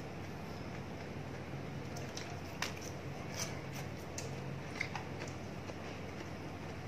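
Two people eating roast duck and lettuce with chopsticks: chewing and mouth sounds, with a few scattered sharp clicks of chopsticks and crunches, over a steady low hum.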